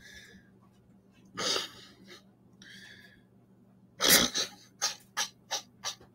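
A man laughing hard: a breathy burst, then a loud outburst about four seconds in followed by a quick run of five short bursts.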